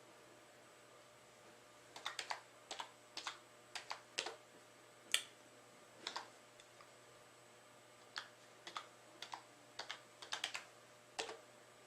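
Typing on a computer keyboard: irregular keystrokes, singly and in quick runs, starting about two seconds in.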